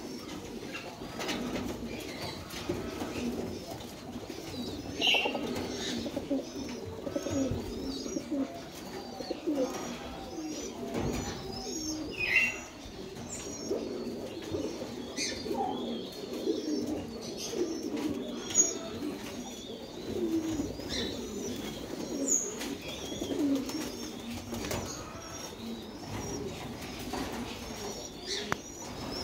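A group of fancy pigeons, American fantails among them, cooing continuously in low, overlapping calls. Short faint high chirps sound over the cooing.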